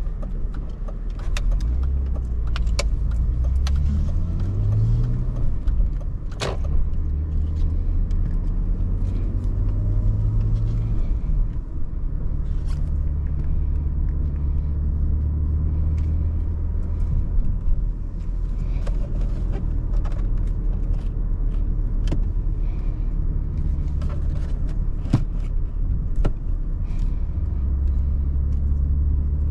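BMW E39 530i's 2979 cc inline-six heard from inside the cabin, revs climbing twice in the first ten seconds or so and dropping back between. It then runs at a steady cruise over low road rumble, with a few sharp knocks, the loudest about six seconds in.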